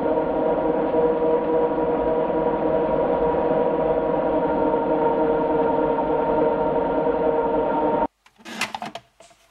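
Food processor motor running steadily on its slow setting, its blade churning onions into a thick, sticky meat paste. The hum cuts off suddenly about eight seconds in, followed by a few clicks.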